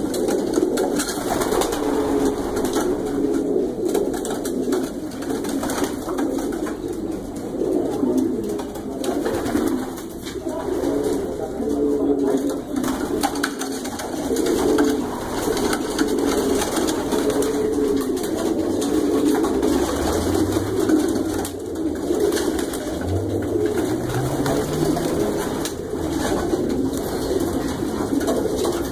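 Many racing pigeons cooing together in a loft, a dense, continuous chorus of overlapping low coos with scattered small clicks.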